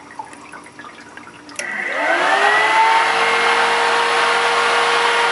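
Electric cooling fan on the conversion's coolant cooler switched on by a thermostatic relay. It starts suddenly about a second and a half in, spins up with a rising whine, then runs steadily, drawing about 5 amps.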